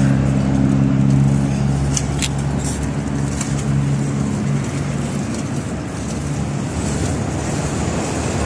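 City street traffic: a continuous wash of passing cars, with a steady engine hum from a nearby vehicle that fades out about halfway through.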